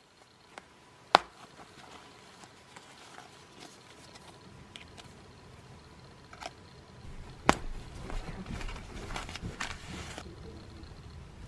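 A metal snap button on a fabric jewelry pouch pops open with a sharp click about a second in, followed by light handling. Around the middle comes another sharp click, then a few seconds of paper and fabric rustling as a necklace on its card is drawn out.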